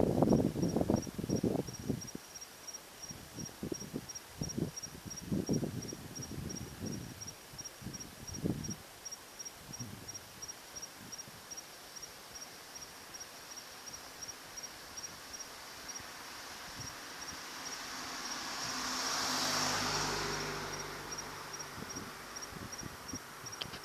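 A cricket chirping steadily, about three chirps a second. Several low rumbles come in the first ten seconds, and a broad swell of noise builds to a peak about twenty seconds in, then fades.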